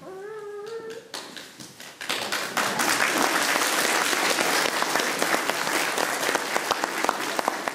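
A brief high voice, then audience applause that starts about two seconds in and carries on loud and dense as the play ends.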